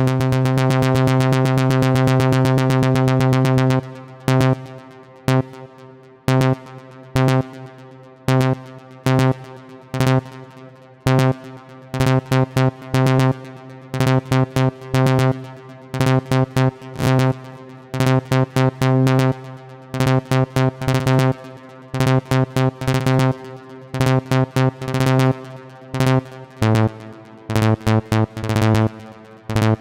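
Vengeance Avenger 2 software synthesizer playing a saw-wave arpeggio. It opens with about four seconds of very rapidly repeated notes, then moves to short separate notes with gaps, some retriggered in quick bursts as arpeggiator ratchets. The pattern drops to a lower note near the end.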